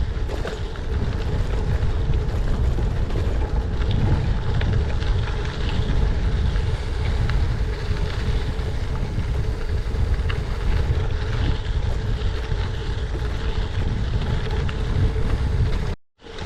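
Wind rushing over the camera microphone over the steady rumble and chatter of a gravel bike riding over washboard gravel. The sound cuts off abruptly near the end.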